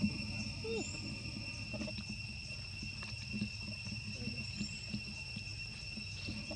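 Insects trilling steadily in two high, even tones over a low outdoor rumble, with scattered soft clicks and a short low squeak about a second in.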